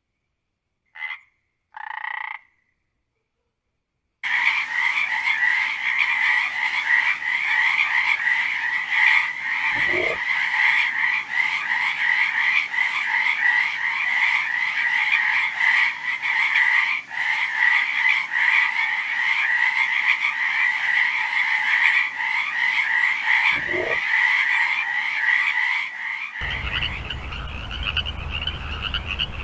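Frogs croaking: two short croaks about a second apart, then, after a few seconds' pause, a dense frog chorus, a continuous fast-pulsing trill. A deeper call slides by twice in the middle, and near the end the chorus changes to a slightly higher one with a low rumble underneath.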